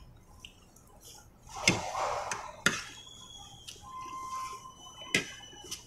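Tableware clinks and handling noise of a meal: three sharp clinks of utensils or dishes spread over a few seconds, with a short rustle around the first.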